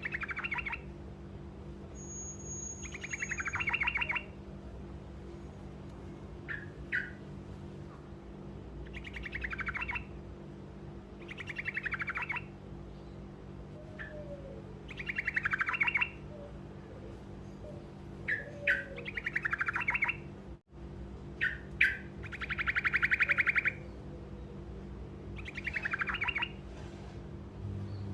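Truco songbird singing short rolling trills, one phrase every two to three seconds, each a quick trill that falls slightly in pitch, with one longer, steadier trill about two thirds of the way through. A steady low hum runs underneath.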